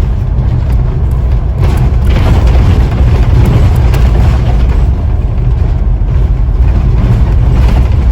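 Scania OmniDekka double-decker bus on the move, heard from inside the saloon: a loud, steady low engine and road rumble.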